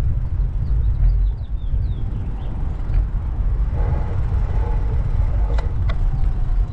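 Wind rumbling steadily over the microphone of a moving bicycle, with faint high chirps in the first couple of seconds and two sharp clicks near the end.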